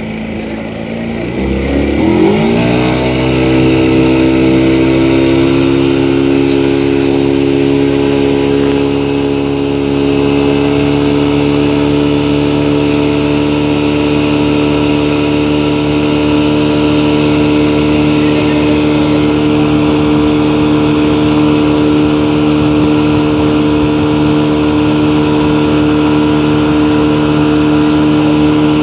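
Motorboat engine revving up about two seconds in, then running steadily at high revs.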